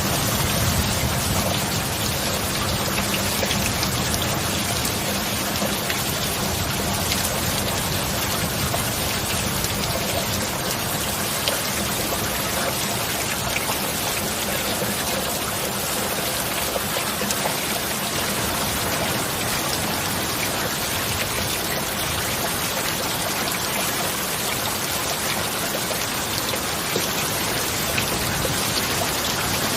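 Heavy, steady rain: a dense, even hiss of drops with no let-up. A low rumble dies away in the first couple of seconds.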